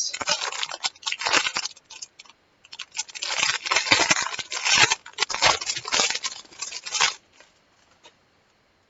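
Plastic packaging crinkling and rustling in irregular bursts as it is handled, going quiet about seven seconds in.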